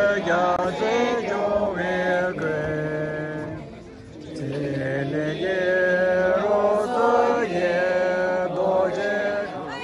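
A voice chanting a melody in long held notes, with a short pause about four seconds in.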